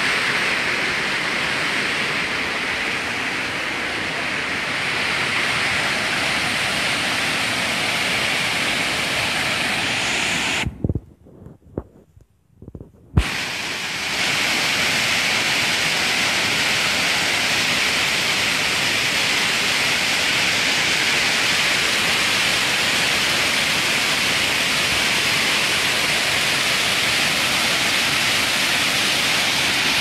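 Shakeh waterfall's several cascades rushing down a rock face: a loud, steady roar of falling water. About eleven seconds in, it cuts off into near silence for a couple of seconds, with a click where it drops out and another where it comes back.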